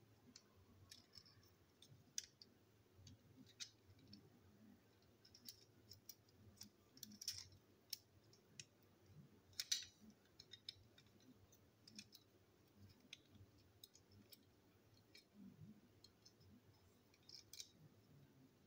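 Faint, irregular light clicks and taps scattered through near silence, the sharpest about halfway through.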